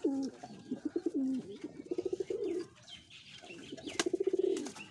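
Giribaz pigeons cooing: a throaty, fast-pulsing coo for the first two and a half seconds, then another about a second later. A single sharp click comes about four seconds in.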